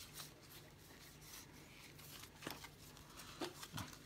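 Faint sliding and flicking of stiff game cards being spread out by hand, with a few soft clicks of card edges.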